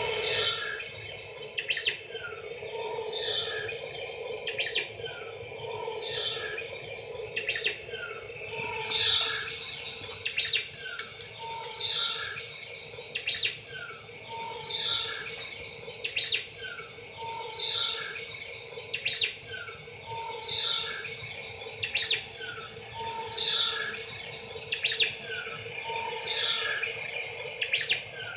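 Birds chirping in one short phrase that repeats about every two seconds, with short clicks in it, over a steady faint hum.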